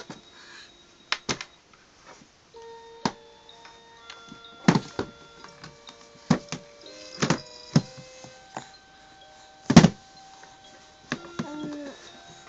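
Electronic toy playing a simple tune of plain beeping notes, with sharp plastic knocks and clacks as the toys are handled, the loudest knock about ten seconds in.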